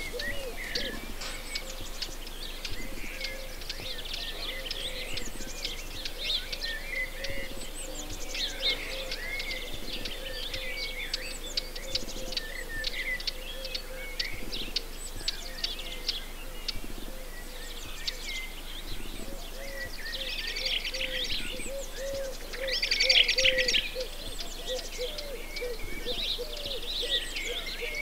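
Many birds singing at once, a dense chorus of high chirps and trills with a steady wavering low call underneath; the chirping is busiest about twenty-three seconds in.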